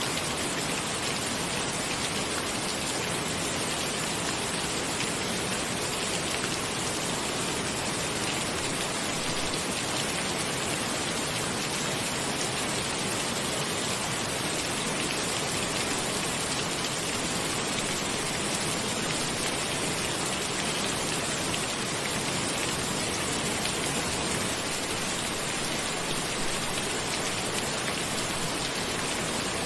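Steady rain falling on a cabin's roof, an even, unbroken wash of drops with no change in strength.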